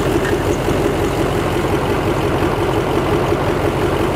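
Duramax 6.6-litre turbo-diesel V8 idling steadily.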